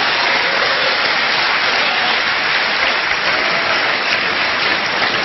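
A large audience applauding and laughing: many hands clapping together in a dense, steady patter.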